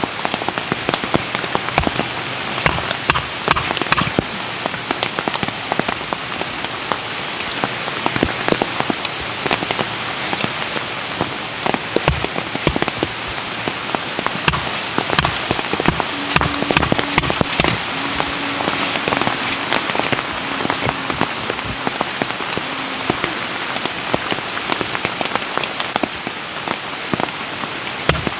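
Steady rainstorm, with many individual drops ticking sharply on a surface close by.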